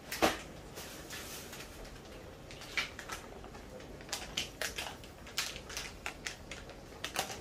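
Oil crackling and popping as it heats in a stainless steel pot: irregular sharp pops, with a loud one right at the start and quicker clusters in the second half.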